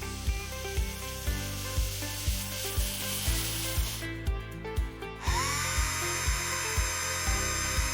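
A miniature electric precision drill spins up about five seconds in, its whine gliding up briefly and then holding a steady high pitch, after a stretch of hiss. Upbeat background music with a steady beat plays throughout.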